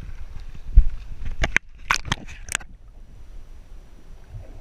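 A heavy knock, then a quick run of sharp splashes and sloshes as the camera is plunged into the sea. After that the sound goes dull and hushed with the microphone underwater.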